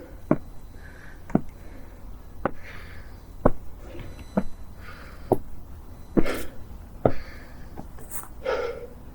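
Footsteps of a person walking at a slow, even pace, about one step a second: a sharp click at each footfall with a short shoe scuff between some steps.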